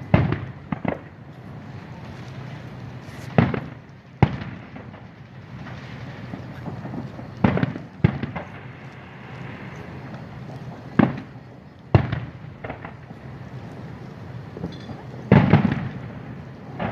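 Fireworks show, aerial shells bursting: about ten sharp booms at uneven intervals, often in pairs, some trailing off briefly. The loudest comes near the end.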